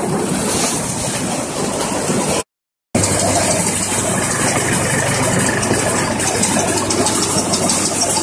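Stationary paddy/multicrop thresher running steadily while paddy straw is fed through its drum, a continuous mechanical noise with a steady low hum underneath. The sound cuts out completely for about half a second around two and a half seconds in.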